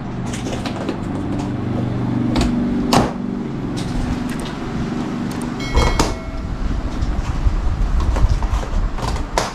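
Scissors cutting the packing strap and tape on a large cardboard TV box, with cardboard scraping and rustling and sharp snips about three seconds in and near the end. A low steady hum runs under the first half.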